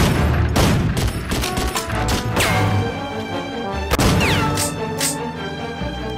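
Film gunfire: repeated assault-rifle shots over loud dramatic music, with two sharp falling whines, about two and four seconds in.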